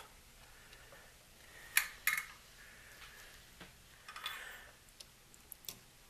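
Quiet hand work at a rotary switch's solder lugs while its wires are unsoldered: two sharp clicks close together about two seconds in, a brief hiss a couple of seconds later, and a few small ticks near the end.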